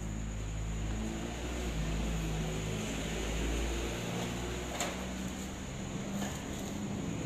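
Steady low mechanical hum with a few faint clicks, the loudest about five seconds in.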